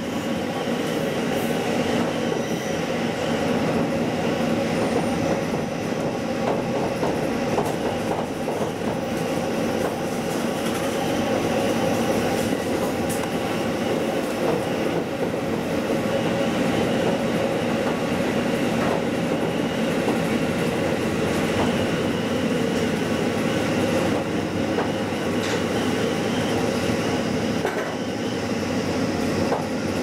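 A KiHa 40 diesel railcar under way, heard from inside its driver's cab: the steady running noise of the engine and of the wheels on the rails, holding an even level throughout.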